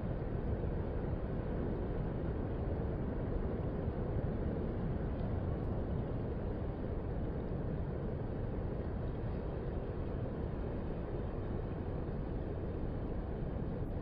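Ocean surf breaking on a sandy beach, heard as a steady low wash in which no single wave stands out.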